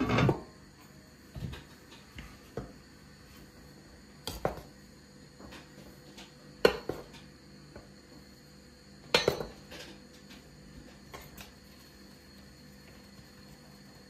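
Kitchenware being handled: a string of separate metal and crockery knocks and clinks, one every second or two, the loudest right at the start and two more about two-thirds of the way through.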